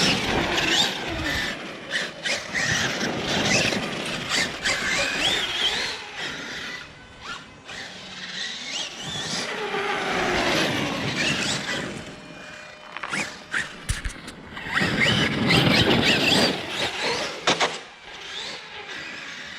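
Electric RC monster truck's Dynamite 2200 kV brushless motor, driven by a Hobbywing Max 6 ESC, whining high and rising and falling in pitch as the throttle is worked, over driving noise, with a few sharp knocks near the end.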